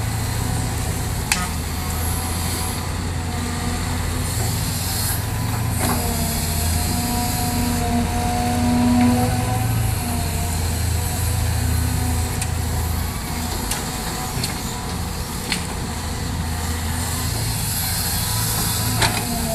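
Caterpillar crawler excavator's diesel engine running under load, with a hydraulic whine that rises and falls a little as the boom and bucket dig soil and swing it into a dump truck. A few sharp knocks of the bucket and stones are heard along the way.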